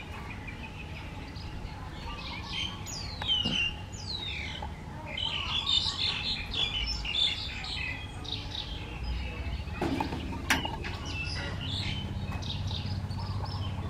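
Birds chirping, short falling whistles and chirps coming thick and fast, with two sharp knocks about ten seconds in.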